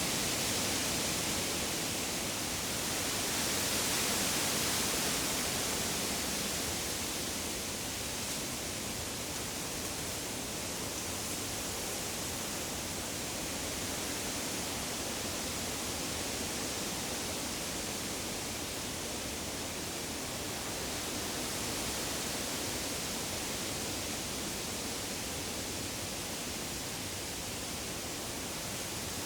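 Wind rustling through the leaves of deciduous trees, a steady airy hiss that swells and eases in gentle gusts, most strongly about four seconds in.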